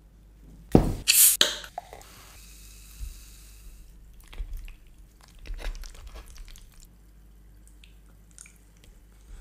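A dark fizzy drink poured into a glass: a loud splash about a second in, then a fine fizzing hiss that dies away over the next couple of seconds. After it come quieter clicks and soft squishing from handling the pasta.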